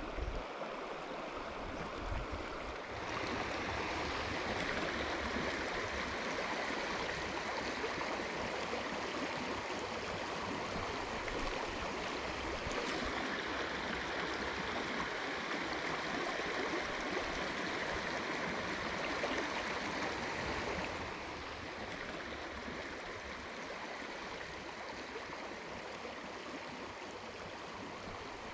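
Steady rush of a river's current flowing, louder from about three seconds in and dropping back about twenty-one seconds in.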